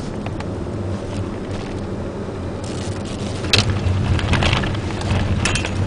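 Ford Puma's 1.7 VCT four-cylinder engine running steadily, heard from inside the cabin along with tyre and road noise on a wet track. About three and a half seconds in comes a sharp knock, the loudest sound, followed by a few lighter clicks and rattles.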